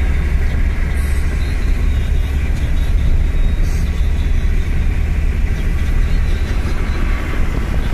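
Steady low rumble of a car cruising along a highway, heard from inside the cabin: tyre and engine noise, heaviest in the deep bass.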